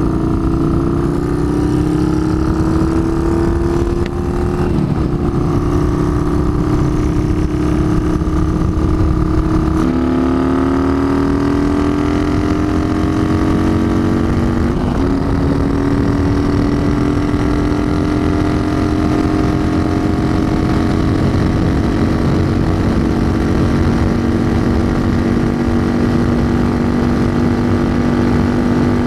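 Yamaha Bolt's 942 cc air-cooled V-twin with a Vance & Hines exhaust at full throttle, accelerating hard toward top speed. The engine note rises and drops back with three upshifts, about 4, 10 and 15 seconds in, then climbs slowly in top gear. Heavy wind rush runs underneath.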